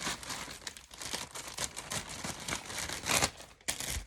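Packaging crinkling and rustling in irregular bursts as it is handled and opened, loudest about three seconds in.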